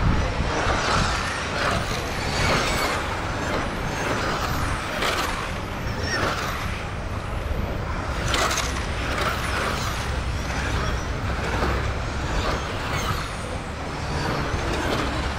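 Modified 1/10-scale electric touring cars passing at speed one after another, each a brief, sweeping whine of brushless motor and drivetrain, every second or two, over a steady low rumble.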